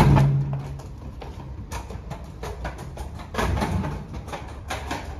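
Footsteps on a paved path: a string of light knocks, roughly two a second, over a steady low rumble. A louder low hum at the start fades within the first second.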